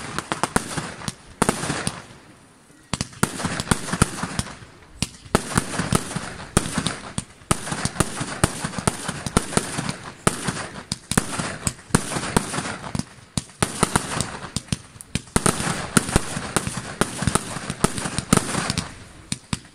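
Fireworks display: many sharp bangs and pops from bursting aerial shells in dense, near-continuous volleys, with short lulls about two and five seconds in.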